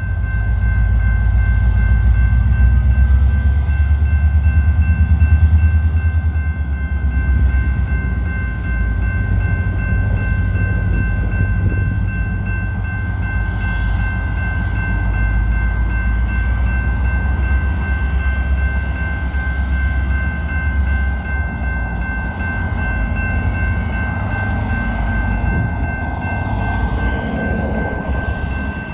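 BNSF diesel locomotive rumbling as it creeps toward a grade crossing, louder in the first few seconds, with the crossing's warning bells ringing a steady high tone.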